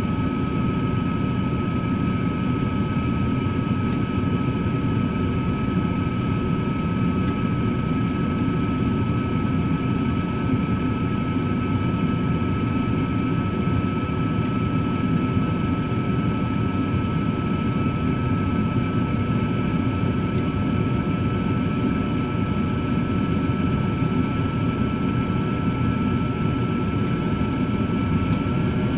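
Cosori air fryer oven running steadily: its fan makes a constant rush with a thin, steady whine above it. The whine steps up slightly in pitch near the end.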